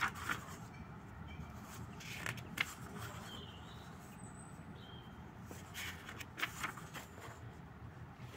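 Thin notebook pages being turned by hand: a papery rustle and flick about three times, near the start, around two and a half seconds in, and again between six and seven seconds in, over a low steady background rumble.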